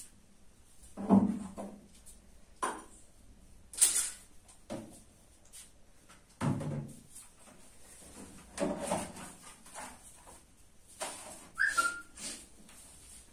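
Irregular knocks and rustles of blankets and quilts being shifted about on a wooden cot, with a short high squeak near the end.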